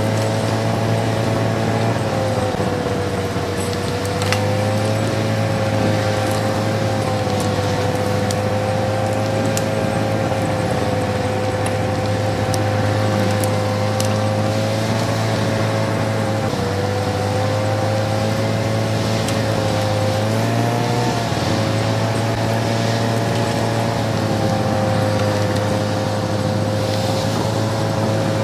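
Tatra truck's diesel engine pulling hard through deep snow, with a steady whine over the engine note that dips briefly in pitch about 16 seconds in and again around 21 seconds.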